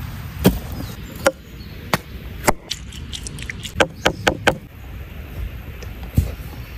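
A series of sharp wooden clicks and taps, single ones spaced about half a second to a second apart, then a quick cluster of them about three to four and a half seconds in, and one duller knock near the end.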